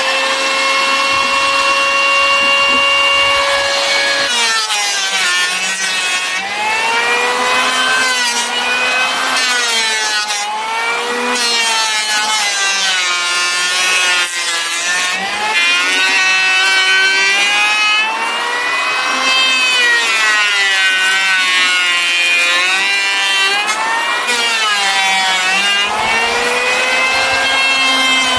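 Electric hand planer shaving a wooden board: a steady motor whine that dips in pitch each time the blades bite into the wood and rises again between passes, about every two seconds after the first few seconds.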